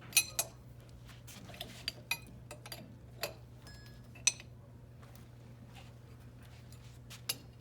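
Irregular sharp metallic clicks and clinks of hand tools against the nuts and studs of a valve as the lock nuts are snugged down, with the loudest clicks near the start and about four seconds in. A steady low hum runs underneath.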